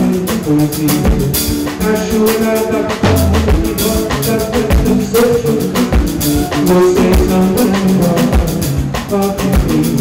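Live band music: a strummed guitar with drums and percussion keeping a steady beat.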